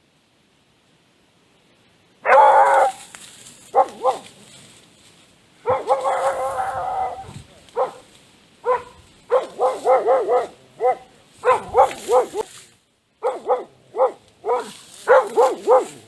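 A dog barking repeatedly in short pitched barks, some in quick runs of two or three a second, starting after about two seconds of silence.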